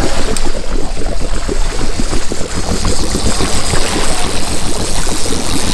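Charter fishing boat under way at trolling speed: the engine running with water rushing along the hull, a steady, rough rumble.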